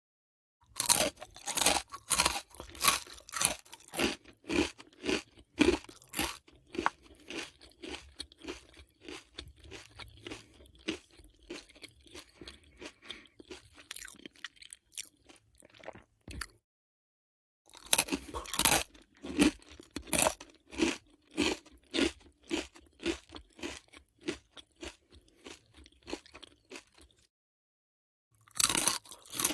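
Potato chips being bitten and chewed close up: three runs of crisp crunches, each loudest at the first bites and thinning out as the chips break down. Two brief silences separate the runs, a little past halfway and near the end.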